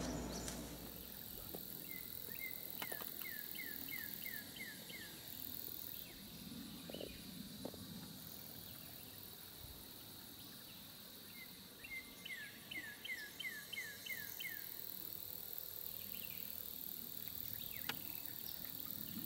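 Outdoor summer ambience: steady high-pitched buzzing of insects, with a songbird twice singing a quick run of about eight descending whistled notes.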